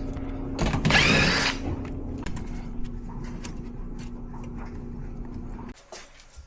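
Power tool running and cutting, with a loud, screeching cut about a second in. The motor hum stops abruptly near the end.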